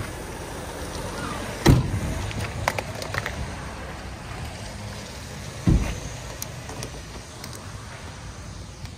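Two heavy thumps about four seconds apart, with a few lighter clicks and knocks between them, over a low steady rumble.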